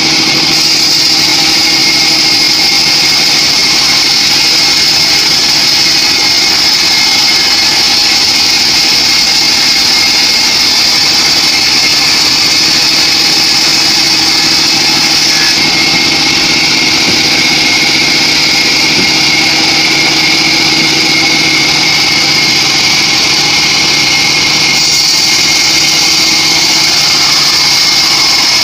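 Homemade bandsaw sawmill running steadily while sawing a teak log, with a constant high whine over the engine and blade noise.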